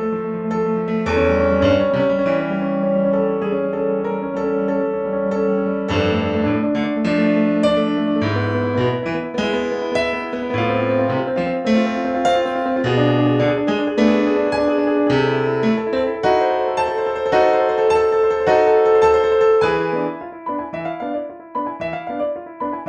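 Roland F-140R digital piano played in its acoustic piano tone: a melody over bass notes and chords, turning to shorter, quieter detached notes about twenty seconds in.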